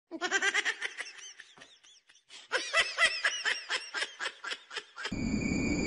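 A person laughing hard in quick, high-pitched bursts, with a short break about two seconds in. Near the end a rushing noise starts.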